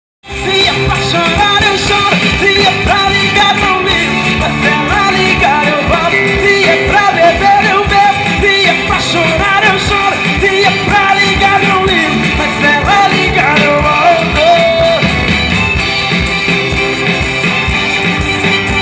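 Loud music: a voice singing over guitar and drums with a steady beat, the singing dropping out about three-quarters of the way through, leaving the band.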